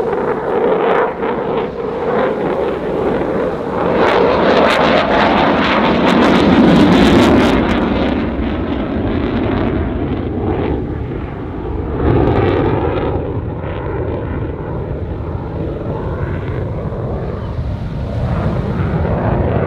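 RAF Eurofighter Typhoon's twin EJ200 turbofans roaring in afterburner on a display pass. The roar builds to its loudest, with a harsh crackle, about a third of the way in, swells again about two-thirds through, then settles into a steadier rumble.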